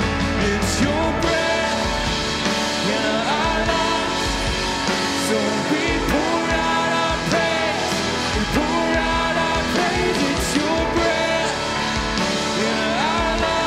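Contemporary worship band music: a full band with guitar playing steadily under a gliding sung melody line.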